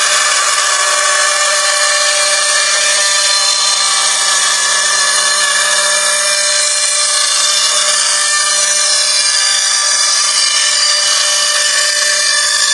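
CNC router spindle running and cutting into a workpiece: a steady whine over continuous cutting noise.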